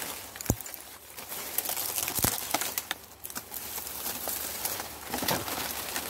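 Close rustling of leafy branches, with twigs crackling and snapping as they are pushed aside and handled with a blade. Two sharper cracks come about half a second in and a little after two seconds.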